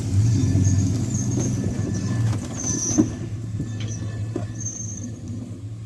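A motor vehicle running steadily with a low hum, with short high-pitched squeaks every second or so and a single sharp knock about three seconds in.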